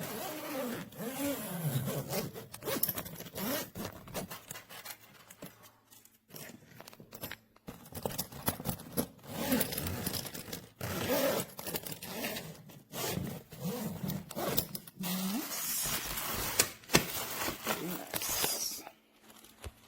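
Suitcase zippers being pulled along their tracks in a series of strokes a second or two long, with short pauses between them, as the softshell luggage is checked.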